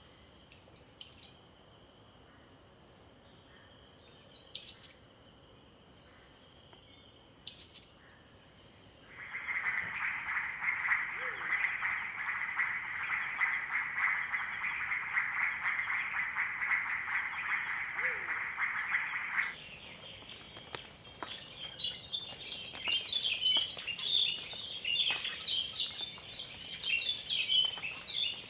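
Forest insects trilling in steady high tones, with three short sharp bird calls a few seconds apart. About a third of the way in a dense, louder insect buzz joins and runs for about ten seconds before cutting off abruptly; after a brief lull a busy chorus of bird chirps fills the rest.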